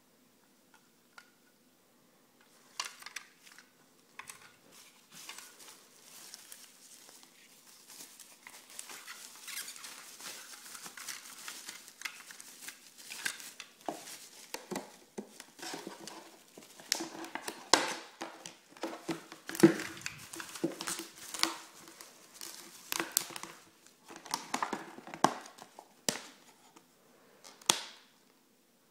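Clear plastic packaging, a blister pack and a bubble-wrap bag, crinkling, crackling and clicking as it is handled, starting about two and a half seconds in and carrying on in irregular bursts with sharp clicks.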